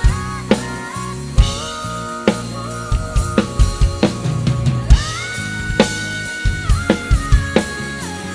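Pearl acoustic drum kit played along to a pop song's backing track: bass drum, snare and cymbal hits, several a second, under a held melody line that slides between notes.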